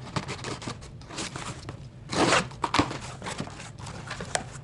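A cardboard shipping box being opened by hand: scattered clicks and rustling, with a short tearing scrape about two seconds in and a sharp click just after.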